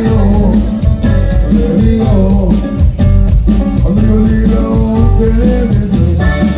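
Live cumbia band playing: bass, a steady percussion beat and a melodic lead line.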